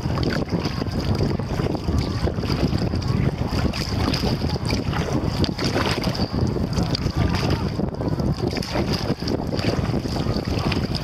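Wind rumbling on the camera's microphone while kayaking, with irregular splashing from paddle strokes in the water and a thin steady high tone.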